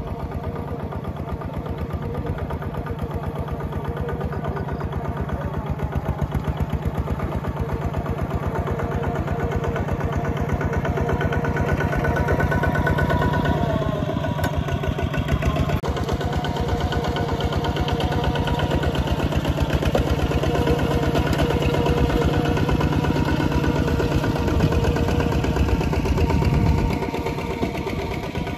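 Two-wheel walking tractor's single-cylinder diesel engine running steadily under load as it pulls a plow through the soil. It grows louder over the first half as it comes near, then falls away near the end.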